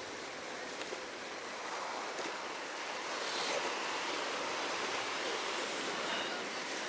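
Steady rushing noise with no distinct events, slowly getting a little louder.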